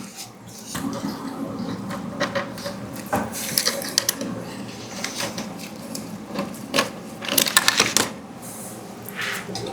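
Irregular clicks, taps and scraping of a hex key and small metal and plastic parts on a Prusa MK4S 3D printer, as the Y-belt tensioning screw is backed out and removed.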